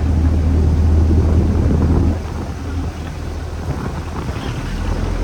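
Boat engine running steadily with wind buffeting the microphone and sea noise; the engine note drops back about two seconds in.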